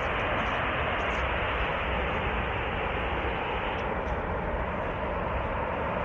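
Fire from a ruptured high-pressure natural gas pipeline: the burning gas jet gives a steady rushing roar with a low rumble underneath, its upper part dulling slightly about four seconds in.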